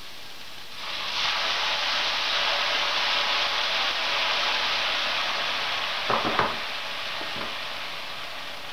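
Water poured into a hot frying pan of shredded cabbage and jalapeños, sizzling and hissing as it turns to steam; it starts about a second in and slowly dies down. A short clatter of knocks about six seconds in.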